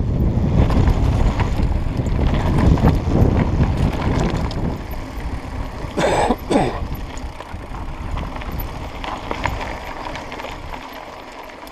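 Mountain bike rolling fast down a dirt singletrack: wind buffeting the microphone and a low tyre rumble with many small knocks and rattles, loud for the first few seconds and then easing off. A brief, sharper sound stands out about six seconds in.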